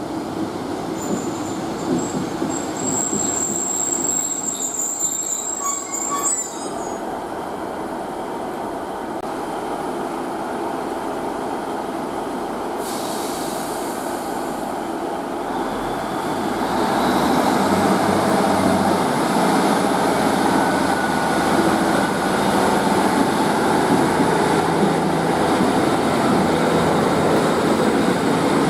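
A diesel train running along the line, growing louder about halfway through and staying loud as it comes close. A thin high squeal sounds over it for roughly the first six seconds.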